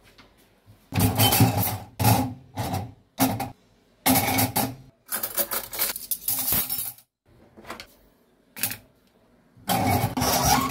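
Metal cutlery and kitchen utensils clattering against a stainless-steel wire dish-rack drawer as they are put into its cutlery basket. The clatter comes in a series of irregular bursts with short quiet gaps between them.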